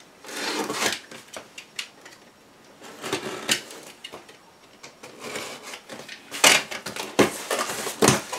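Cardboard parcel being cut open with a box cutter and handled: short scratchy cuts and rustles of cardboard and tape, with sharp knocks that are loudest in the last couple of seconds.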